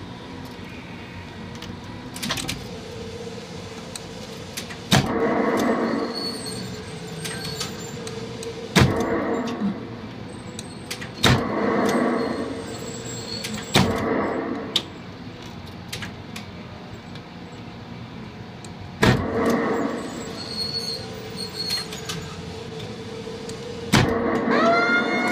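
1973 Midway Duck Hunt electromechanical rifle game running with a steady hum, broken every few seconds by a sharp click followed by a short burst of rushing noise. Near the end a pitched tone rises, then holds steady.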